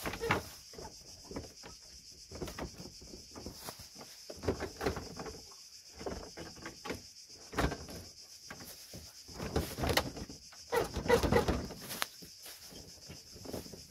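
Hard plastic car trim clicking and knocking as the cover panel above the radiator and the front bumper are pressed and clipped into place. A denser run of knocks and rubbing comes about ten to twelve seconds in.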